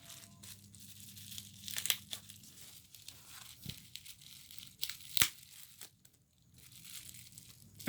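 Packaging being torn open and crinkled by hand, with irregular crackling and two sharp snaps, the louder one a little after five seconds in.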